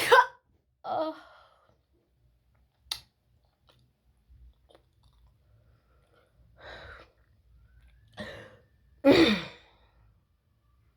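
A person sneezing, with sharp breaths between sneezes. The loudest sneezes come right at the start and about nine seconds in; a short sharp click falls near three seconds.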